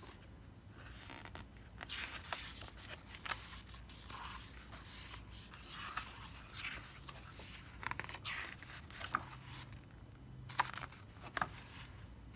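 Pages of an album photo book being turned and pressed flat by hand: a run of short paper swishes and scrapes with a few light taps.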